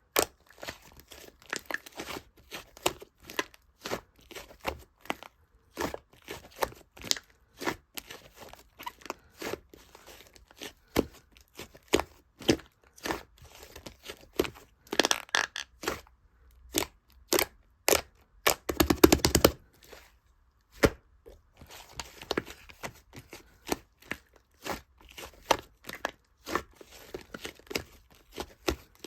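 Slime being squeezed, stretched and poked by hand: irregular sticky pops and crackles, with a dense run of crackling about nineteen seconds in.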